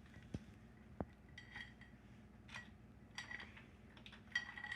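Faint, scattered metallic clinks and taps of steel motorcycle parts and tools being handled, some ringing briefly, as the primary drive chain is worked onto its sprockets.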